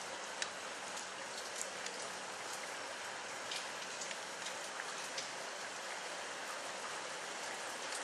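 Steady rain falling: an even hiss with scattered sharp taps of drops at irregular moments.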